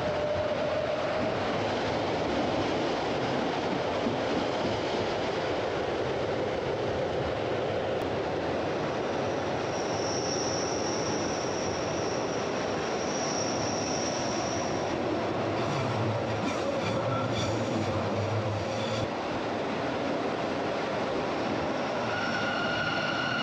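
Glacier Express train running on metre-gauge track, heard from on board: a steady rolling rumble of the wheels on the rails. A high wheel squeal comes in about ten seconds in and lasts several seconds, there are a few clicks a little later, and a squeal of several tones starts near the end.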